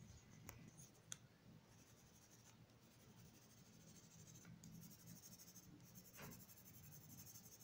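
Faint scratching of a blue colored pencil shading on paper, with a couple of light ticks in the first second.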